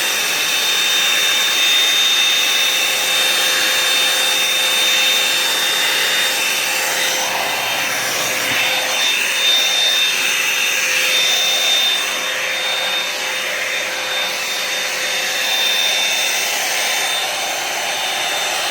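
Revlon One Step hair dryer and volumizer (a round-brush hot-air styler) blowing steadily with a constant high whine while being brushed through long hair; the sound shifts slightly as the brush moves.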